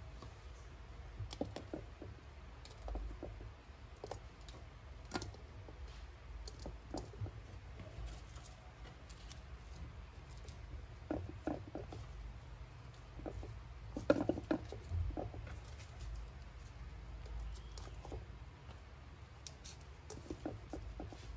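Scattered light clicks, taps and crackles as a garlic bulb is broken into cloves and the cloves and kamias pieces are dropped into an aluminum pot. A low steady hum runs underneath, and the loudest cluster of clicks comes about two-thirds of the way through.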